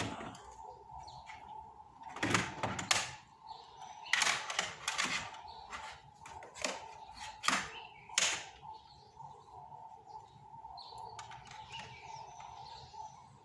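Clicks and knocks of hands and multimeter probes working at a car battery's terminals, about eight of them in the first eight seconds, over a faint steady high-pitched tone.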